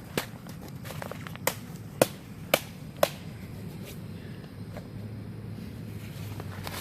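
A handful of sharp snaps or knocks, five in about three seconds, then a low steady hum from about five seconds in.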